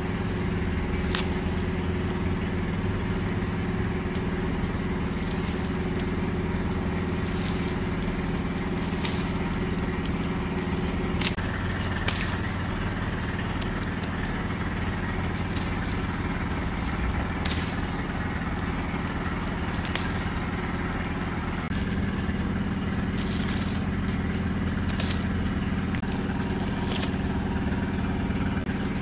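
A steady low engine-like hum runs throughout, with scattered clicks and crackles of leaves and twigs being handled as fruit clusters are picked from a branch.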